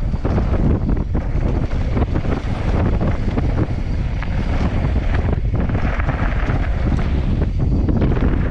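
Heavy wind buffeting the onboard camera's microphone during a fast mountain-bike descent on a dirt trail, with frequent small knocks and rattles from the bike over the rough ground.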